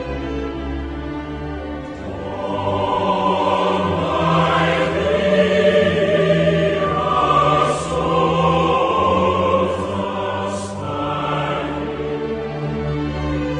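Slow background choral music: voices holding long notes over a sustained low bass, swelling about two seconds in.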